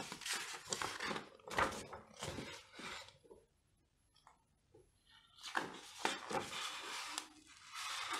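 A large folded paper instruction sheet being unfolded and handled, rustling and crinkling in two spells with a pause of about two seconds between them.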